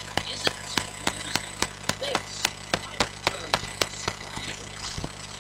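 A finger tapping a small microphone over and over, about three to four sharp taps a second, to test whether it is picking up sound. A steady low electrical hum runs underneath.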